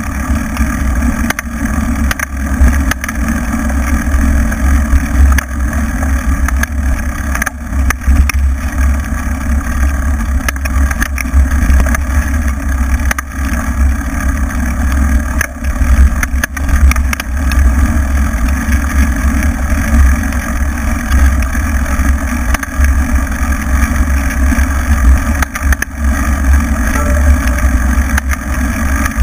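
Off-road motorcycle riding a bumpy dirt trail: the engine runs steadily under heavy wind noise on the mounted camera, with short knocks from the bumps.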